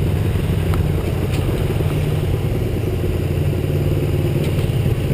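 Motorcycle engine running steadily at low road speed, heard through a camera mounted on the bike's handlebars.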